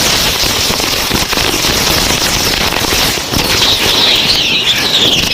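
Hundreds of rocket firecrackers going off at once: dense, continuous crackling and popping, with a wavering high whistle coming in over it about three and a half seconds in.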